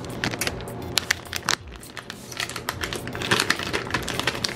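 Small plastic accessory bag crinkling in the hands as it is handled and opened, a run of irregular sharp crackles.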